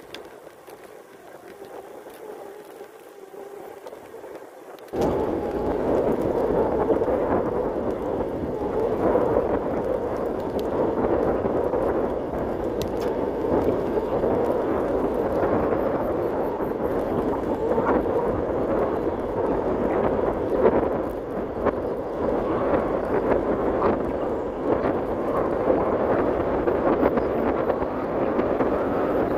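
Wind buffeting and rushing over the microphone of a camera on a moving bicycle. It becomes suddenly much louder about five seconds in and then stays steady and rough.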